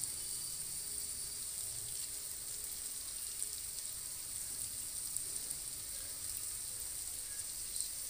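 Stuffed bitter gourd pieces sizzling gently in oil, a steady hiss, with a few faint taps of a spatula as the pieces are turned over.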